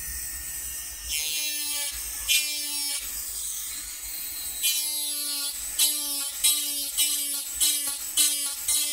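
Rotary engraving handpiece with a small burr touched to a titanium knife clip in short repeated dabs. It spins with a steady high hiss at first, then each touch gives a brief, steady-pitched grinding buzz. The touches come faster, about two a second, from about halfway, as the clip is textured to look like broken stone.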